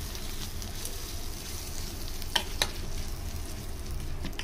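A metal spoon stirring sliced onions with spices and hot mustard-oil tempering in a steel bowl, a steady wet hiss, with two quick clinks of the spoon against the bowl about two and a half seconds in.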